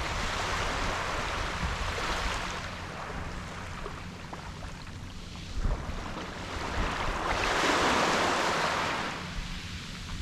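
Ocean waves washing onto a beach: a swell of surf at the start fades, and a second, louder one rises and falls about seven seconds in.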